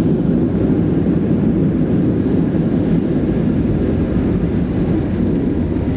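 Cabin noise inside a Boeing 737-700: a steady, loud rumble of the CFM56 jet engines and airflow, with no sharp events.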